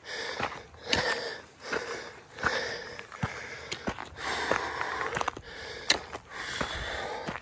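Heavy, rhythmic breathing of a hiker climbing a steep trail, close to the microphone, with footsteps scuffing and crunching on a dirt trail.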